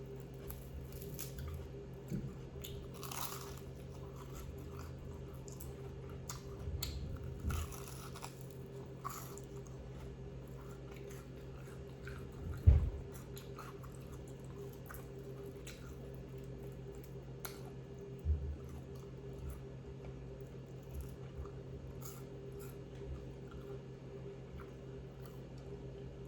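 Crunchy fried chicken being bitten and chewed close to the microphone: scattered crisp crunches, thickest in the first half, over a steady low hum. A sharp low thump about halfway through is the loudest sound.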